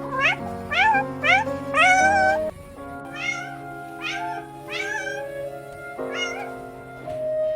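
A cat meowing about eight times over background music. The first three meows are short and rising, the fourth, about two seconds in, is longer and wavers, and the rest come spaced out through the remainder.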